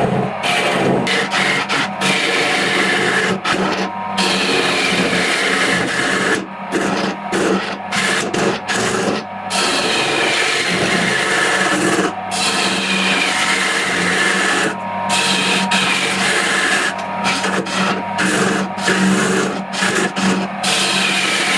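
Wood lathe running with a turning tool cutting inside the spinning pine-and-walnut vase: a rough scraping hiss over a steady motor hum, breaking off briefly many times as the tool lifts off the wood.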